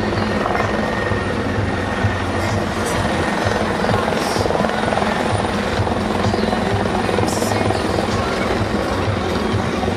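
RACQ CareFlight rescue helicopter flying overhead, its rotor and engines running at a steady, even level.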